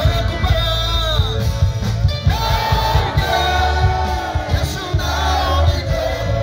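Loud gospel praise music through loudspeakers: a sung melody gliding over a heavy, steady bass.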